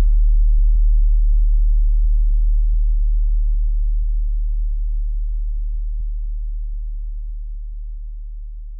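A single very deep sub-bass sine tone held steadily and slowly fading out.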